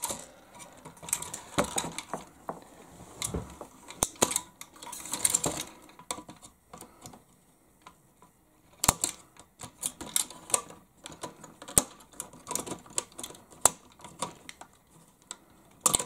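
Pliers and small plastic parts handled against a plastic RC truck chassis: irregular clicks, taps and scraping rustles, with a quieter pause midway.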